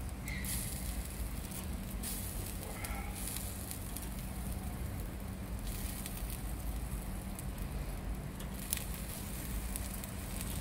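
Shrimp, octopus and fish sizzling and crackling on a mesh grill mat over a hot grill, with scattered sharp clicks as metal tongs turn the shrimp.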